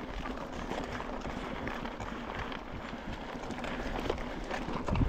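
Mountain bike rolling along a gravel track: steady crunch of the tyres on gravel with many small clicks and rattles from the bike.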